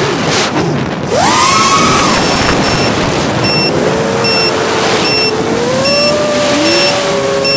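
Brushless motors and propellers of a 5-inch 6S FPV quadcopter whining in flight, heard from the onboard camera over wind rush. The pitch jumps up sharply about a second in as the throttle is punched, then wavers up and down with throttle changes. A series of short high beeps repeats about every 0.7 s from about two seconds in.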